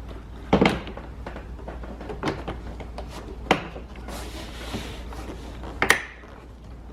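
Plastic inner door trim panel being fitted against the door: a few sharp knocks and clicks, with a rustling scrape around the middle.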